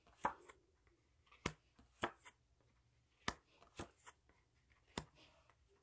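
Tarot cards being handled at a table: about six soft, short clicks and taps, spaced roughly a second apart.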